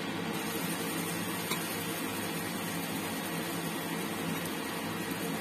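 Battered tempeh frying in hot oil in a pan: a steady sizzle, over a low, even fan hum.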